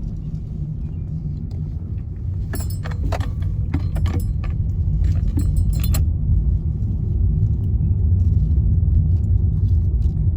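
Car driving with a steady low road rumble. A cluster of metallic jangles and clicks comes about two and a half to six seconds in.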